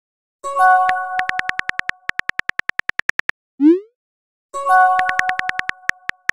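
Phone texting sound effects: a message chime rings out and fades, followed by a quick run of keyboard key clicks at about ten a second. A rising send whoosh follows, then another chime and another run of key clicks.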